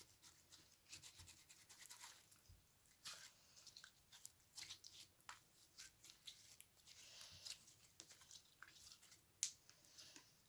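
Slime being squeezed and kneaded by hand, giving faint, irregular small crackles and clicks, with one sharper pop about nine seconds in.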